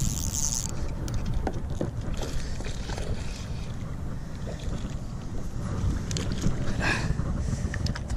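Wind buffeting the action-camera microphone on a kayak, a steady low rumble, with a high hiss that cuts off within the first second and a few short splashes and knocks as a hooked largemouth bass is reeled up to the boat.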